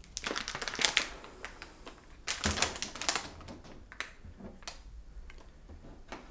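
Wrapping of a bouquet of flowers crinkling as it is handled, in two bursts of about a second each, at the start and again about two and a half seconds in, with a few single crackles between.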